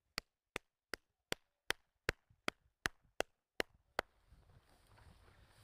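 Sharp clicks repeating at an even pace, about two and a half a second, with a faint background hiss coming in about four seconds in.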